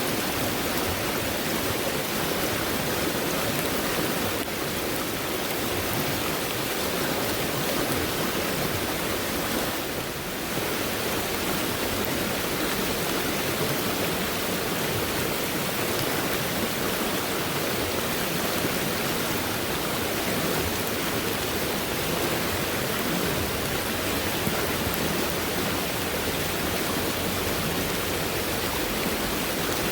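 Fast-moving stream after heavy rainfall, the water flowing steadily.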